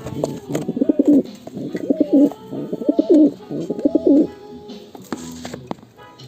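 Homing pigeon cooing: four looping, rising-and-falling coos about a second apart, then fading to quieter sounds near the end.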